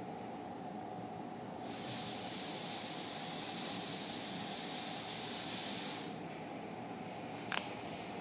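A steady hiss that starts about two seconds in and stops after about four seconds, over a low constant room hum, followed by a single sharp click near the end.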